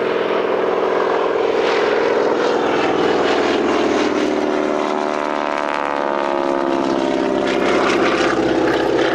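Grumman G-164 Ag-Cat biplane's engine and propeller droning as it flies a display pass, the tone sweeping and shifting in pitch about midway as the plane goes by.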